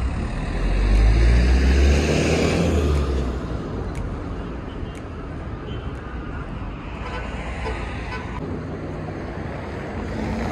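A car drives past on the road, its engine and tyre noise swelling over the first few seconds and then fading. Steady traffic noise follows.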